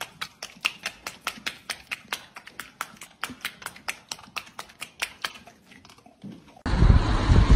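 Horse in a straw-bedded stall making a quick, even run of clicks, about four a second, which stops about five seconds in. A loud rush of noise cuts in near the end.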